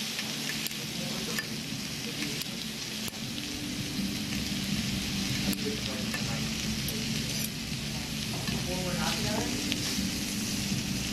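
Pork belly sizzling on a hot griddle plate, a steady hiss of spitting fat, with a few light clicks of metal scissors and tongs against the meat and plate.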